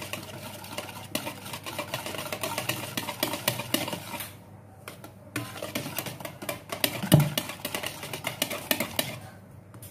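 Wire whisk beating cake batter by hand in a plastic bowl: rapid clicking and tapping of the wires against the bowl with the batter sloshing, pausing briefly about four and a half seconds in, with one louder knock about seven seconds in.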